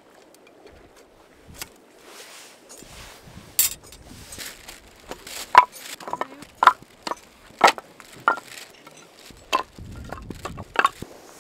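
Split firewood pieces being set down and stacked, knocking against each other in a series of sharp wooden clacks, about ten of them, starting a few seconds in.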